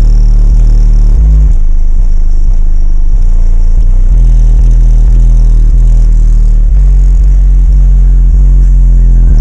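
Very loud, deep bass notes from a car audio system with four Audioque HDC18 18-inch subwoofers firing through into the cabin. The held notes change pitch several times and overload the recording into heavy distortion.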